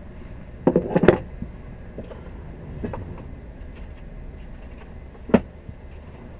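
Stationary HGV heard from inside the cab, its engine idling as a low steady hum, with a cluster of knocks and clicks about a second in and one sharp knock a little after five seconds.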